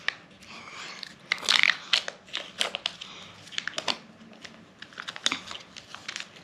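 Kinder Joy plastic wrappers being handled and crumpled, an irregular run of crinkling and crackling with a few louder rustles.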